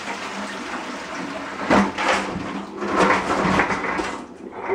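Water and live crabs pouring out of a plastic bucket into a stainless steel kitchen sink: a steady rush with louder surges about two seconds in and again around three seconds.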